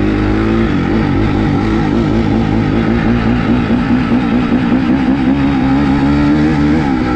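Dirt bike engine running at part throttle from the rider's seat, its pitch rising and falling a little as the throttle is worked.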